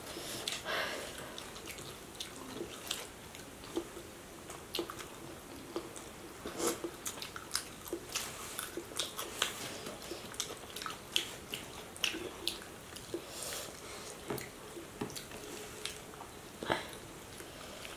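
Close-up eating sounds of people eating fried fish and rice by hand: irregular lip smacks, chewing and small clicks, with no steady rhythm.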